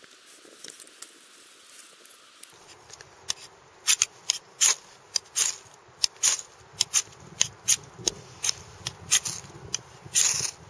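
Knife spine scraped repeatedly down a ferro rod to throw sparks onto fatwood tinder: quick, bright rasping strikes about two a second, starting a couple of seconds in after some faint handling.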